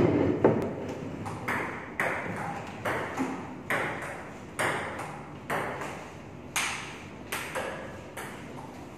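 Table tennis ball impacts: a run of sharp clicks, roughly one a second, each ringing briefly in the hall.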